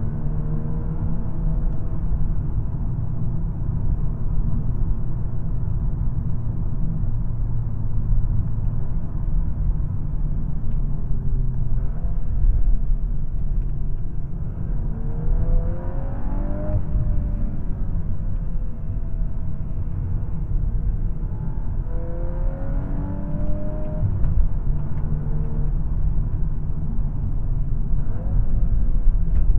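Volkswagen Golf R's turbocharged 2.0-litre four-cylinder engine driving along over a steady low road rumble. The engine note climbs in pitch under acceleration twice, around the middle and again about two-thirds through, each time easing back down afterwards.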